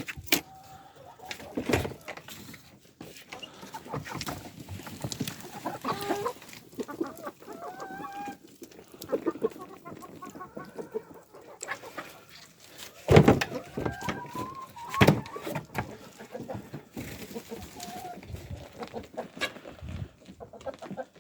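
Chickens clucking as they are let out of the coop, with scattered short calls. Several knocks and thumps come through, the loudest about thirteen seconds in.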